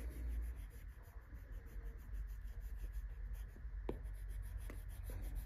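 Wax crayon rubbing back and forth on paper laid on a hardback book, in quick repeated colouring strokes, with a couple of light taps about four seconds in.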